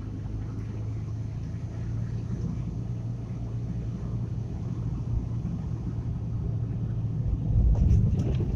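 Car engine hum and tyre rumble heard from inside the cabin while driving down a mountain road. Near the end the rumble swells, with a few sharp knocks as the car jolts over a rough patch.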